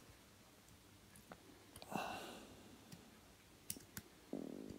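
Faint clicks and scrapes of a screwdriver and wire being worked at a light fitting's junction box, with a louder clatter about two seconds in and a short low hum near the end.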